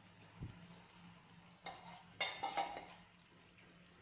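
Marinated chicken being scraped out of a bowl into a pan with a spatula: a soft thud about half a second in, then a cluster of clinks and scrapes of utensil against bowl and pan, with a brief ringing, around the middle.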